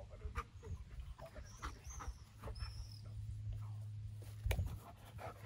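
Belgian Malinois giving a few short, high-pitched whines, with a single thump near the end.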